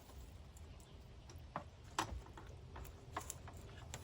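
A few faint, scattered clicks and taps, with a quiet low hum underneath.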